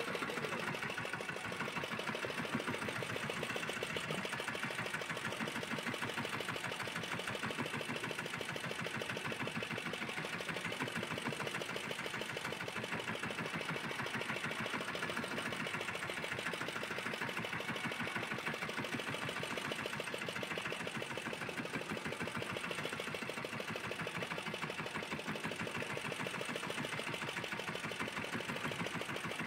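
A small fishing boat's engine running steadily at a low speed, a fast, even chugging that holds unchanged.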